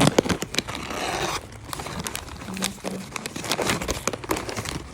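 Plastic packaging crinkling and rustling as it is handled: a dense rustle for the first second or so, then scattered crackles.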